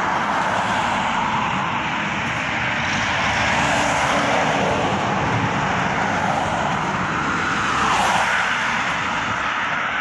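Road traffic on a highway: a steady noise of vehicles driving past, swelling about four seconds in and again near eight seconds as vehicles go by.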